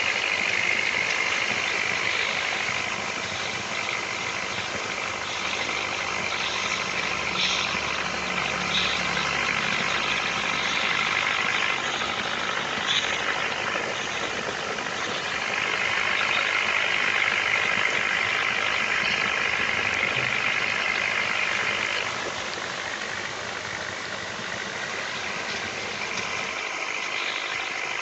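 Toy pop-pop (otok-otok) steam boat engine putt-putting steadily, its candle-heated boiler pulsing water through the tubes; the sound is high-pitched and eases slightly about two thirds of the way through.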